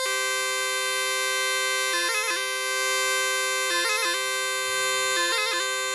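Background music: a steady drone note under a slow melody, with quick ornamented flourishes about two, four and five and a half seconds in.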